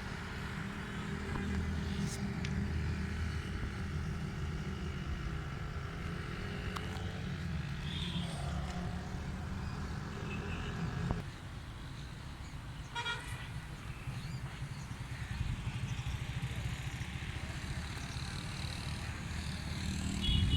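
GEU-20 diesel-electric locomotive passing with a steady low engine rumble that drops off suddenly about halfway through, then the train running on, with short horn toots later on and again near the end.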